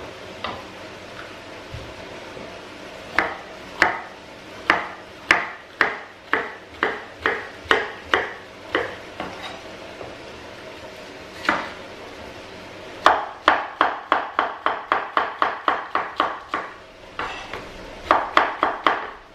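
Kitchen knife slicing sweet peppers into thin strips on a wooden chopping board, each cut ending in a sharp knock of the blade on the board. There is an even run of about two knocks a second, then after a pause a fast run of about five a second, and a short quick run near the end.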